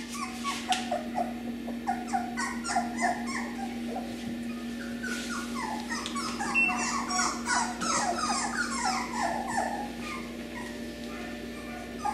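Beagle puppies whimpering: a rapid run of short, high whines, each falling in pitch, thickest around the middle, over a steady low hum.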